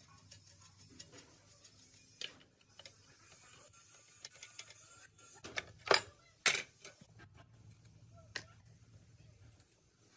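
Light clicks and taps of small objects being handled, with two sharper knocks about six seconds in, over a faint steady low hum.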